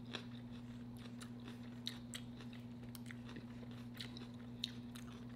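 Quiet chewing of crunchy food, with scattered small crunches and mouth clicks, over a steady low hum.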